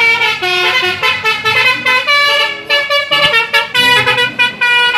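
Telolet bus horn, a set of tuned air horns, playing a quick tune of stepped notes.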